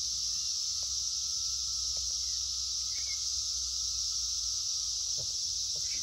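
Chorus of Brood X periodical (17-year) cicadas: a steady, high-pitched drone with a fainter, lower steady buzz beneath it.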